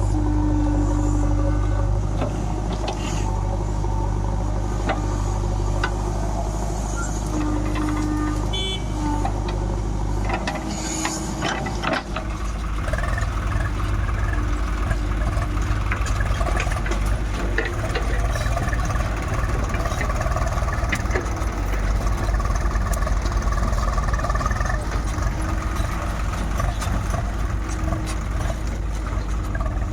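Heavy diesel machinery running at a mud-loading site: a steady low engine drone with scattered short knocks. About eleven seconds in, the engine note changes and turns rougher and more pulsing.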